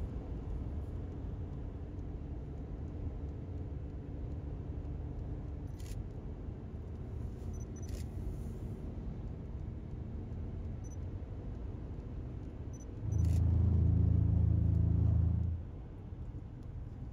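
Steady low road and tyre noise inside a car driving on wet pavement, with a couple of faint clicks. About two-thirds of the way through, a much louder low, even-pitched drone comes in suddenly for about two seconds and cuts off.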